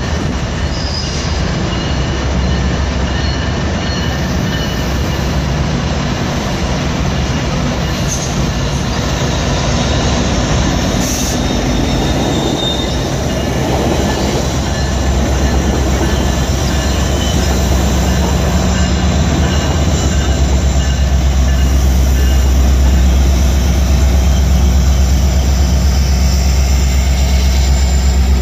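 GO Transit diesel commuter train, a locomotive hauling bilevel coaches, passing close by: a steady loud rumble of engine and wheels on rail, with faint high squeals from the wheels. The low rumble grows heavier about halfway through as the coaches stream past.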